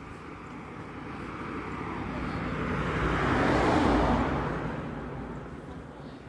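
A car driving past, its noise building to a peak about four seconds in and then fading away.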